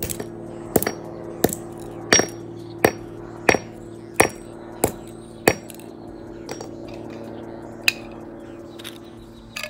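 Steel claw hammer with a fiberglass handle striking small plastic earbud and case pieces against a concrete slab: nine sharp blows in a steady rhythm, a little under one a second, then a pause and a single further blow near the end.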